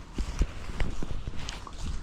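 Footsteps on dry ground cover: about five short, irregular crunches and clicks over a low rumble.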